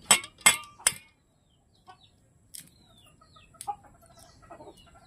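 Three sharp knocks in the first second, then domestic chickens clucking, with small birds chirping.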